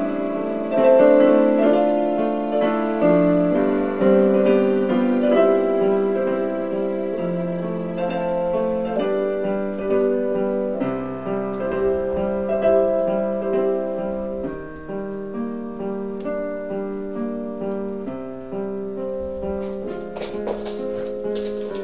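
Slow, soft piano music with held, overlapping notes, gradually getting quieter, with a few brief clicks near the end.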